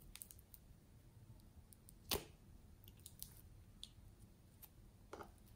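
Faint scattered clicks and taps of a small plastic spoon scooping inside a small plastic jar, with one sharper tap about two seconds in and another near the end.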